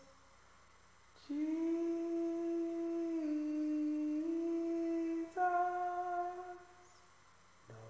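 A cappella humming: after a short pause, a long held note of about four seconds that dips slightly in pitch partway through and comes back up, then a shorter, higher note that fades away. A lower chord of voices comes in right at the end.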